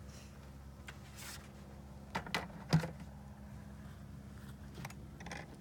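A few light clicks and knocks as beehive parts are handled and set in place, the loudest a sharp knock about three seconds in, over a faint steady hum.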